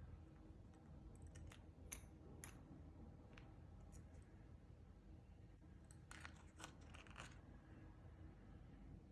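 Near silence: room tone with a few faint scattered clicks, a small cluster of them about six to seven seconds in.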